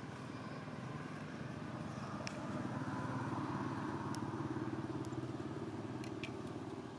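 A motorbike engine running steadily nearby, growing louder about halfway through and easing off near the end, as if passing by. A few faint sharp ticks sound over it.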